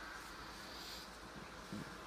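Wind in the trees: a faint, steady rustling hiss of leaves, with one short low bump near the end.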